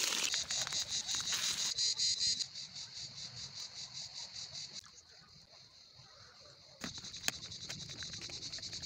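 Insects chirping in a fast, even, high-pitched pulse. The chirping fades out for a couple of seconds midway and then comes back, with a couple of sharp cracks about seven seconds in.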